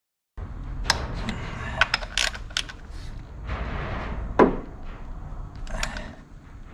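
Irregular metallic clicks and knocks of a small ratchet wrench and its socket tightening the ignition coil hold-down bolts, with one sharper knock about four and a half seconds in, over a low steady rumble.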